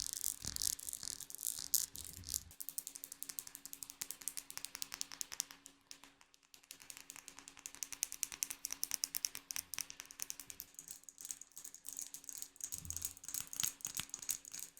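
Close-miked ASMR trigger sound: dense, rapid fine clicking and rattling, many small clicks a second, easing off briefly about six seconds in and then building again, over a faint steady hum.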